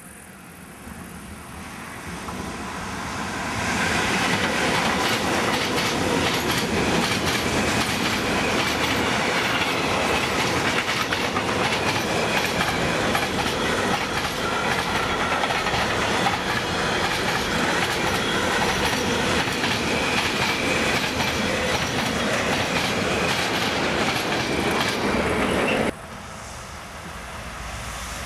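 Freight train of tank wagons hauled by an electric locomotive passing close by: the rumble builds over the first few seconds, then a steady loud rush of wheels with rhythmic clicks over rail joints. About two seconds before the end it cuts abruptly to a quieter, more distant train approaching.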